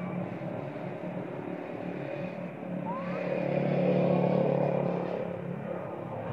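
A motor vehicle engine running steadily, growing louder about four seconds in and then fading as it passes, with a few faint rising chirps over it.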